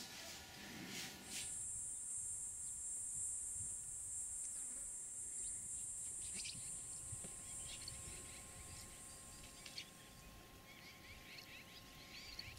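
Steady high-pitched insect drone that starts about a second in and fades away past the middle, over faint outdoor ambience.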